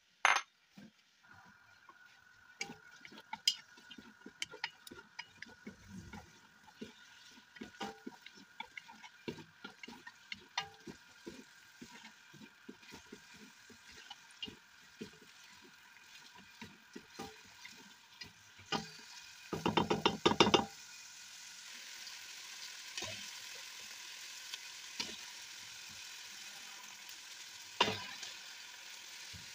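Diced onions frying in oil in a pot, stirred with a wooden spoon that knocks and scrapes against the pot again and again. About two-thirds through there is a short burst of loud, rapid knocking, and after it the frying settles into a steady sizzle as lamb pieces go in with the onions.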